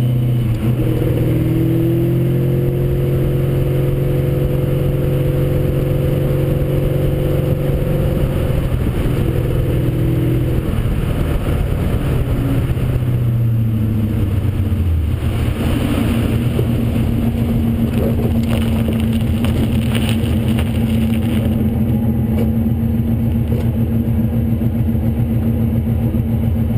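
Nissan 240SX driving, heard from a camera mounted low on the car's side: a steady engine note under constant road and wind noise. About halfway through, the engine pitch falls as the car slows, then settles into a steady lower hum.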